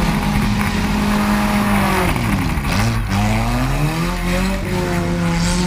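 Demolition derby cars' engines revving. The pitch drops about two and a half seconds in, then climbs again, with more than one engine running at once.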